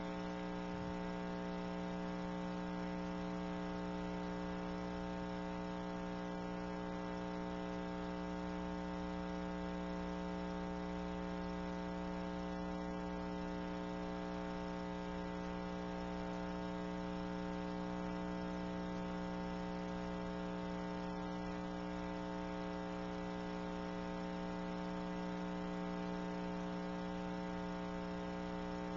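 Steady electrical mains hum on the audio feed, a constant buzzy drone with a stack of evenly spaced overtones that does not change.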